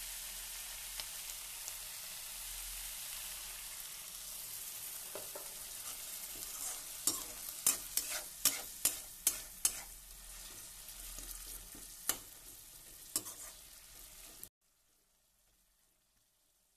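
Capsicum and freshwater algae sizzling as they fry in a steel wok. Partway through, a metal skimmer spatula clinks and scrapes against the pan in a quick run of strikes. The sizzle cuts off suddenly near the end.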